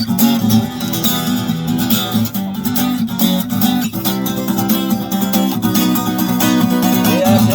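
Acoustic guitar strummed in a steady chord rhythm, an instrumental passage between sung verses.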